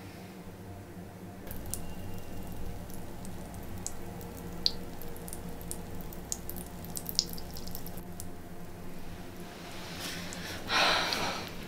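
Water dripping from a bathroom tap into the sink: scattered single drips over a low steady hum. A short, loud rush of noise comes near the end.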